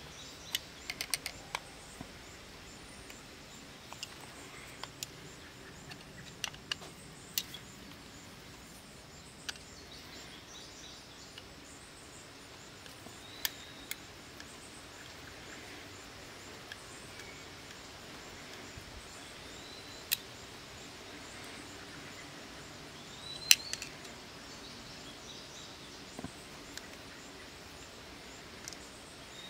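Scattered small clicks and taps of tools and small metal carburettor parts being handled during disassembly, with one louder clack about two-thirds of the way through, over a faint steady background hiss.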